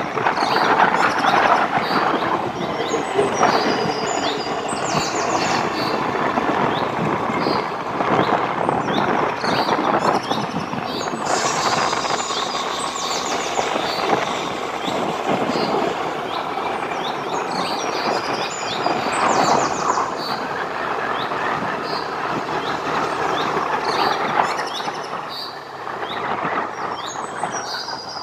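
A vehicle travelling along a hill road: steady road and wind noise, with short high chirps recurring above it.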